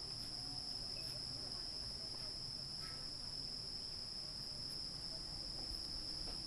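Steady chorus of insects, an unbroken high-pitched shrill drone.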